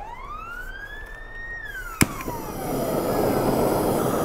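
A siren-like whistle sound effect glides up and then down. About two seconds in there is a sharp click as a GrillGun propane searing torch is lit. Its flame then starts with a steady rushing blast that grows louder.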